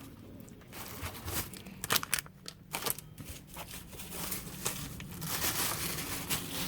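Packaging being handled: crinkling and rustling, with scattered light clicks and knocks.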